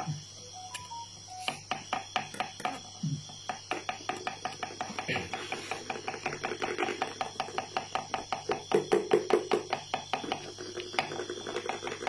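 A thin stick rasped against the beetle's log, giving a fast, even clicking of about six strokes a second. This is the rubbing that rouses a fighting rhinoceros beetle. It is loudest a little past the middle.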